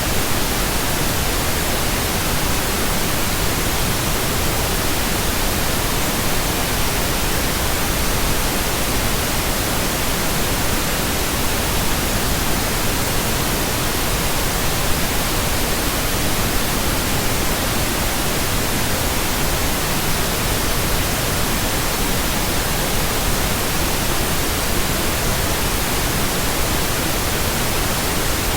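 Steady synthetic pink noise: an even hiss that does not change.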